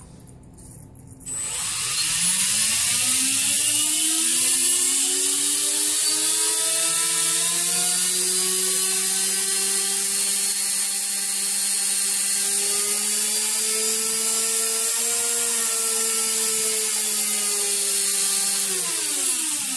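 Electric RC model helicopter fitted with an aluminium tail boom, spinning up on the ground: its motor and gear whine starts about a second in and rises in pitch over a couple of seconds, holds steady with a strong rotor hiss, then winds down in pitch near the end. The tail boom runs without vibrating.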